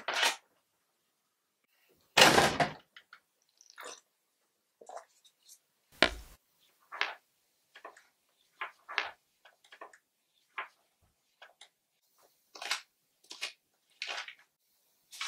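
Pages of a large book being leafed through: a string of short, separate paper rustles, with a louder rustle about two seconds in and a sharp thump about six seconds in.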